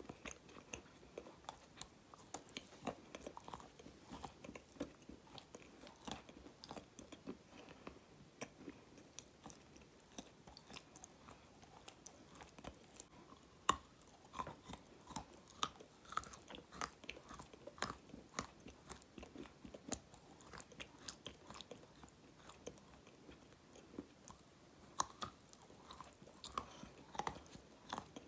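Close-miked biting and chewing of chunks of dark grey clay: a steady run of small crisp crunches and crackles, with a sharper bite now and then, the loudest a little before halfway.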